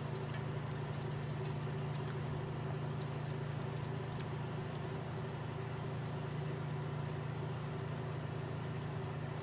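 Thick braised beef chili stirred with a spatula in an enameled cast-iron Dutch oven: faint wet squelching and scraping, over a steady low hum.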